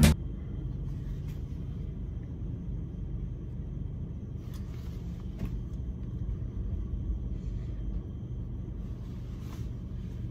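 Low, steady rumble of a car heard from inside its cabin, with a few faint ticks.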